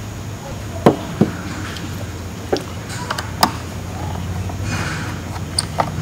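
Sharp, separate clicks and taps of a screwdriver and small screws against the open Panasonic Toughbook CF-30 laptop's chassis, the loudest about a second in, over a low steady hum.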